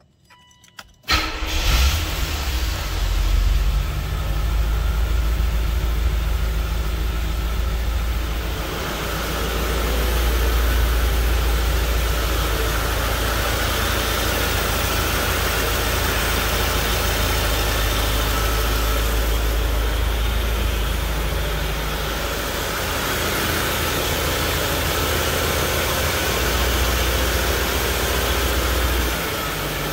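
A 1985 Corvette's 5.7-litre tuned-port-injected V8 is started with the key after a few faint dash chimes. It catches about a second in, then idles steadily, the level easing slightly about eight seconds in. The sound echoes in a garage.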